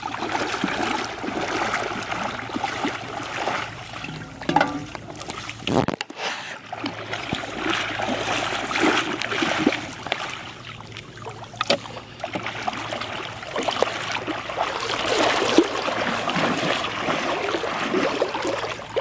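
Shallow muddy floodwater splashing and sloshing irregularly as a person wades and moves their hands through it, with a brief break about six seconds in.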